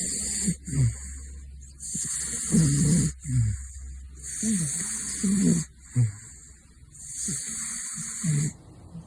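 Caracal snoring in its sleep: each breath brings a breathy hiss and a low, wavering snore, about five breaths at a slow, even rhythm.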